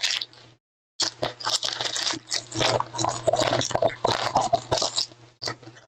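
Plastic foil wrapper of a Donruss football card pack crinkling and tearing as the pack is opened by hand, a dense crackle that stops shortly before the end.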